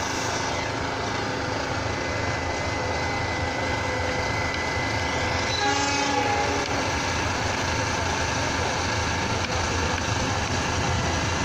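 Diesel locomotive approaching slowly over a set of points, its engine rumbling steadily, with a short horn blast about six seconds in.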